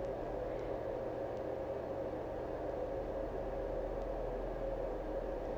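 Steady low background hiss with a faint hum and no distinct event: room tone.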